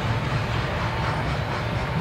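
Double-stack intermodal container train's loaded well cars rolling past, a steady rumble of steel wheels on rail.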